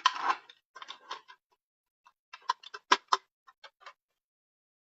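Irregular light clicks and knocks, the loudest about three seconds in, as a puppy works a kibble-filled food toy and the kibble rattles inside it.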